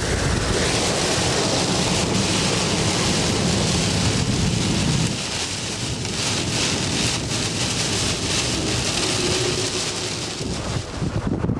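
Rain hissing steadily with gusty wind rumbling on the microphone, the rumble easing about halfway through.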